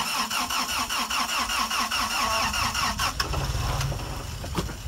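Truck starter motor cranking the engine while it is in gear on a steep climb, labouring against the drivetrain load through a Marlin Crawler dual transfer case, with a quick even rhythm for about three seconds. The engine then nearly catches but does not quite start: still a bit too much load on the starter.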